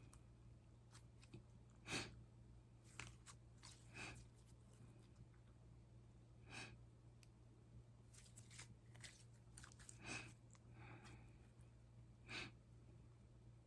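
Slime being squeezed and kneaded by hand: faint, scattered sticky pops and clicks, a few every couple of seconds, over a steady low hum.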